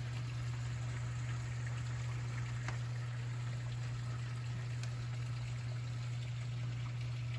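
Heavy rain falling steadily, an even rushing hiss with a few faint tapping clicks, over a constant low hum.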